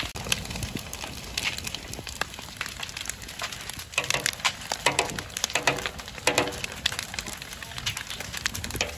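A burning waste shed crackling, with many sharp cracks and pops. A few louder short pitched sounds come between about four and six and a half seconds in.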